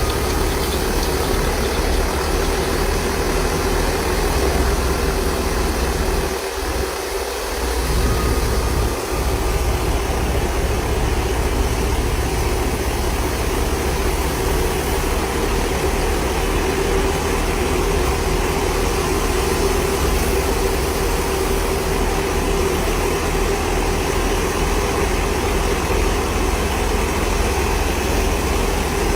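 Farm harvesting machine's diesel engine running steadily with a constant hum and deep rumble, the low rumble dropping briefly about six seconds in.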